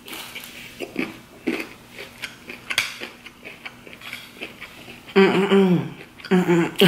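Close-miked chewing of a mouthful of buttered rice and fried soft-shell crab, with small clicks of a fork against the plate. About five seconds in, a loud voice sound comes twice, falling in pitch.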